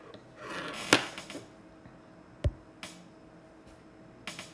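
A handful of light taps and clicks from a stylus on a tablet screen, spread unevenly, with a soft rush of noise just before the first sharp click and a dull low thump about halfway through.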